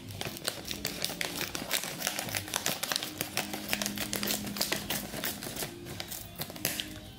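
Small scissors snipping across the top of a plastic pouch of dry fish: a rapid run of crisp clicks mixed with the crinkle of the plastic film.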